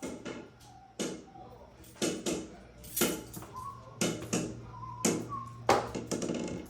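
A series of sharp knocks about once a second, some in quick pairs, over a faint low hum.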